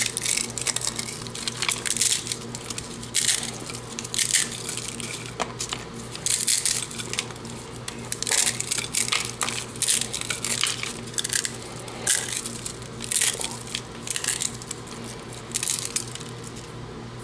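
Dry instant ramen noodle blocks being crunched up by hand inside their packets: irregular bursts of crackling and crushing, a crunch every second or so, with a steady low hum underneath.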